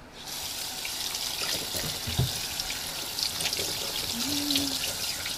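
Kitchen tap running steadily into a sink, the water splashing off a frozen piece of meat being rinsed under it.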